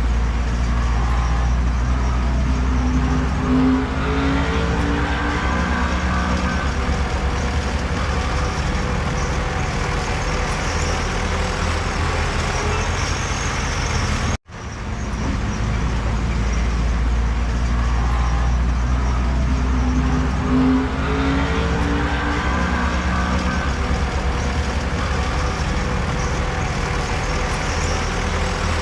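Heavy diesel earthmoving machinery running with a steady low drone, revving up briefly twice. The sound cuts out for a split second about halfway.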